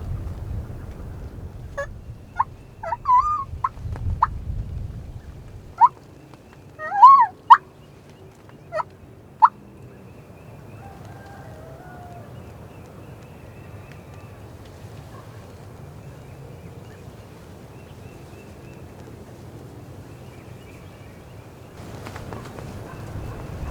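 Turkey calls: a string of short, sharp calls from about two to ten seconds in, loudest around seven seconds. Gusts of wind rumble on the microphone in the first few seconds.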